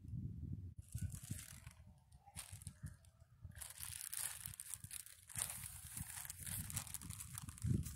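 Long clear plastic sleeve crinkling and rustling as it is unrolled and handled, in irregular bursts starting about a second in, over a low rumble.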